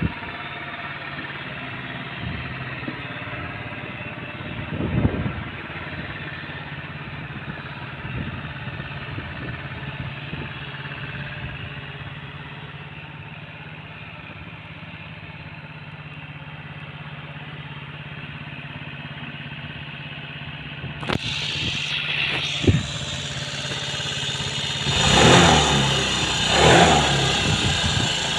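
Aprilia Leonardo 125 scooter's single-cylinder four-stroke engine idling steadily, running again after standing unused for a long time, then revved two or three times near the end.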